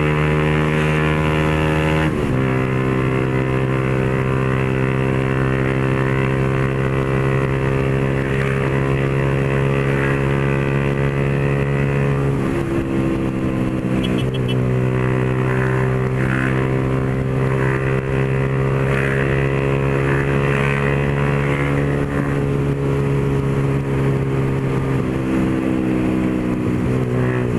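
Motorcycle engine with an open, straight-piped exhaust running steadily under way, its note shifting with gear changes about two seconds in and again about twelve seconds in.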